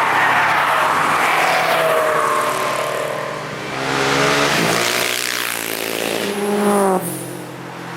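Cars going past at speed, their engine notes rising and falling in pitch as they rev and pass. Several engines overlap, and the loudest one drops away abruptly about seven seconds in.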